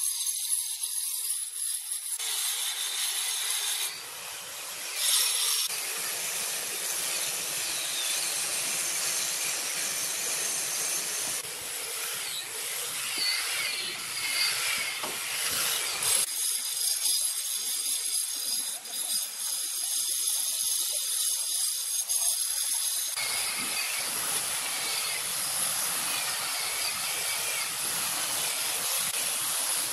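Handheld angle grinder running with its disc against the rounded edge of a granite step, grinding the stone with a steady high whine and gritty hiss. The sound shifts several times as the tool is lifted, pressed and moved along the curve.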